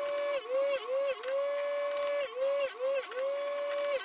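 Electric chainsaw-chain grinder running with a steady whine, its pitch sagging briefly each time the wheel grinds a cutter tooth. The dips come three in quick succession, then a pause of about a second, then three more, each with a light click.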